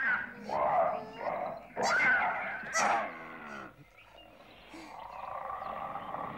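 Cartoon badger and bear cub snarling and growling at each other in a fight. Several loud snarls come in the first three seconds, then a quieter, steadier growl near the end.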